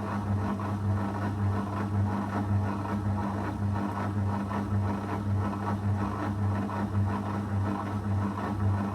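Zanussi FL984CN front-loading washing machine running a 35° wash cycle: a steady low hum that throbs about twice a second, over a continuous churning noise.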